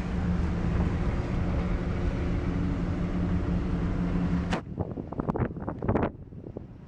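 Motor vehicle engine running with a steady low hum that cuts off suddenly about four and a half seconds in. A quick series of clicks and light knocks follows.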